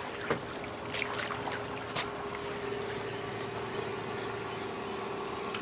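Ambience on a small fishing boat on open water: a hiss of wind and water under a steady, even hum, with a few light clicks in the first two seconds as a spinning reel is cranked during a lure retrieve.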